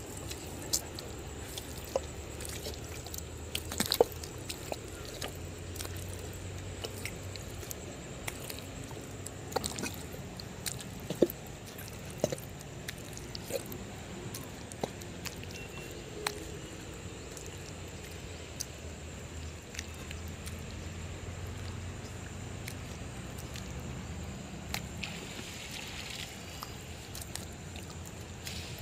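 Footsteps squelching in soft tidal mud, heard as scattered irregular squelches and sharp clicks over a steady low rumble.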